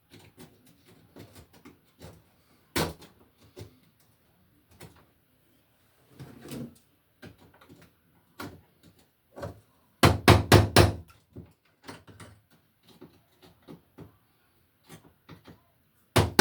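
Scattered clicks and knocks from a rusted metal electrical box being knocked loose from the wall. There is one sharp knock about three seconds in, then two quick runs of four or five heavy strikes, about ten seconds in and again near the end.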